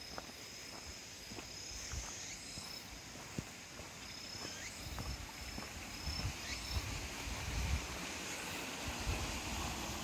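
Outdoor ambience: a thin, high trill that drops in and out, over low rumbling wind and handling noise on the microphone, with a few small clicks and knocks from walking.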